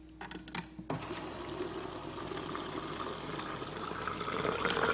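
Water from a refrigerator door dispenser running into a large plastic drink bottle. It starts about a second in, after a few light clicks, and the filling sound gets louder and rises in pitch as the bottle fills.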